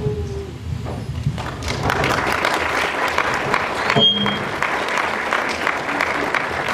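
Audience applauding, swelling up about one and a half seconds in and continuing steadily.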